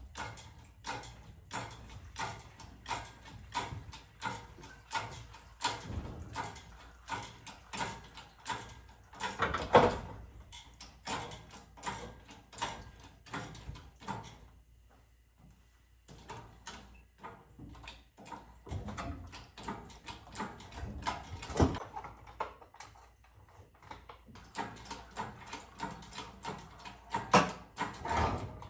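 Hydraulic engine hoist being pumped by hand to raise an engine: a steady series of clicks and clanks, about two a second, stopping for a few seconds about halfway through and then starting again.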